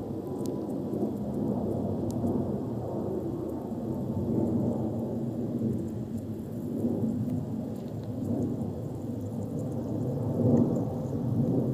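Low, uneven rumbling noise that swells and fades, with a few faint ticks.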